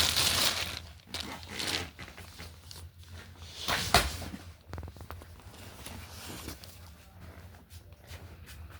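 Plastic packaging rustling and tearing as it is handled and opened, with one sharp knock about four seconds in, then fainter rustling.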